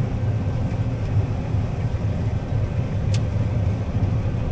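Steady low engine rumble of a running vehicle or machine, with one brief faint click about three seconds in.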